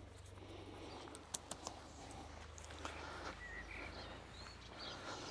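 A few light plastic clicks about a second and a half in, from the inner tent's clips being snapped onto the aluminium dome pole. Faint bird chirps follow over a quiet outdoor background.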